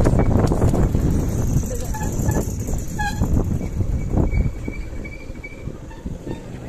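Motorcycle riding over a rough road: engine and wind rumble on the microphone with jolts from the surface, easing off in the second half as it slows. A short beep sounds about three seconds in.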